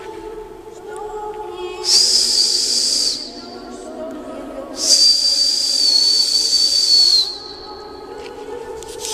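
Two loud, high whistle blasts, one about a second long and the second about two and a half seconds, ringing inside a hollow echoing sphere. A lower steady hum continues underneath.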